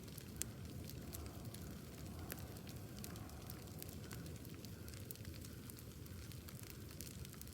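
Wood bonfire burning: a steady low rush of flames with frequent small crackles and pops, and one sharper pop about half a second in.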